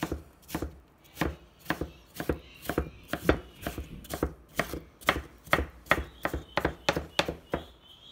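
Chef's knife dicing cucumber on a plastic cutting board: a steady run of chops, about three a second, that stops near the end.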